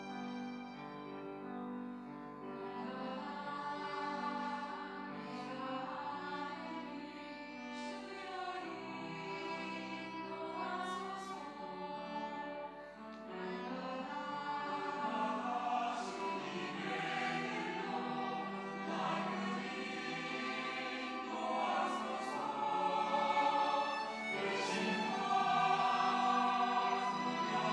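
Church choir singing an anthem in parts, with instruments behind it; the singing grows louder in the second half.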